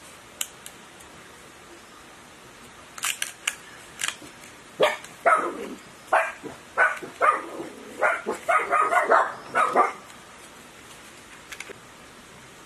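A dog barking about a dozen times in quick succession for about five seconds, after a few sharp clicks.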